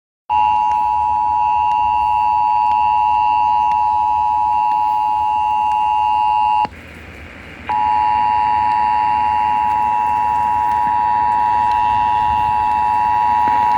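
Emergency Alert System attention signal, the steady two-tone alarm of about 853 and 960 Hz, played through an FM radio's speaker to announce a Tornado Warning broadcast. It drops out for about a second just past the middle, then resumes.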